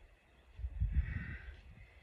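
A heavy breathy exhale, a rush of breath with a low rumble, starting about half a second in and lasting about a second.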